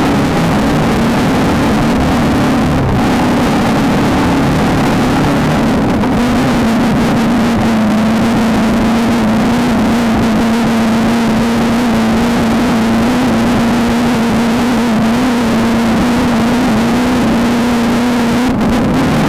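Off-road racing VW Beetle's engine running hard at nearly constant revs, its pitch wavering only slightly, under a dense rush of rattle and wind noise.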